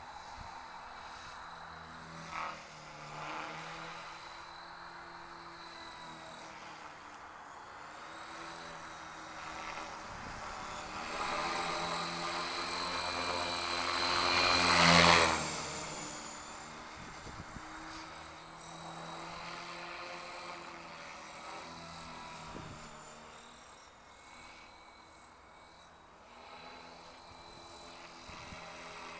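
Battery-electric 3DX500 RC helicopter in flight: the rotor and motor whine swells to its loudest about halfway through as it passes close, bending in pitch, then fades as it flies away.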